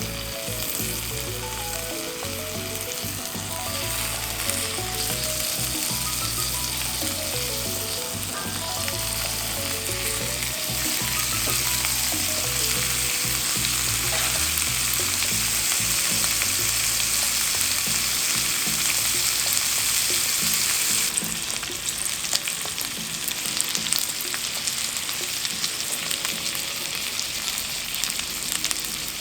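Food sizzling in hot oil in a frying pan: a steady frying hiss that drops in level about three quarters of the way through, followed by scattered light clicks. Soft background music plays under it for roughly the first half.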